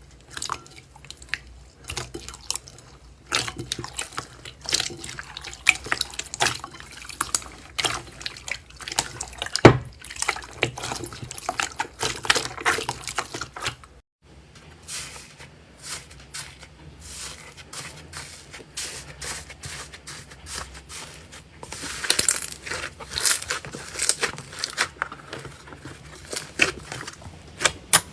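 Slime being squished and pressed: wet squelching with many small, irregular popping clicks, breaking off for a moment about halfway through and then starting again.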